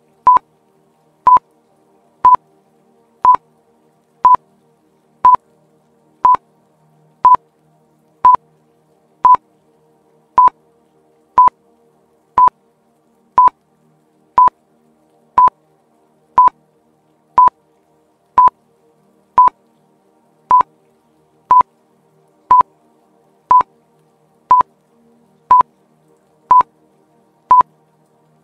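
Quiz countdown timer beeping: a short, high electronic beep once a second, marking each second of a 30-second countdown.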